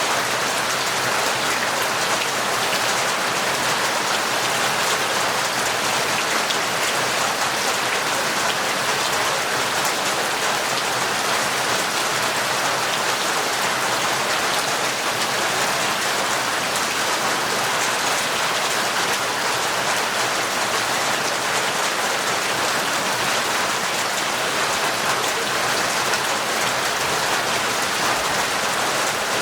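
Heavy, torrential rain falling steadily, an even unbroken hiss with no thunder.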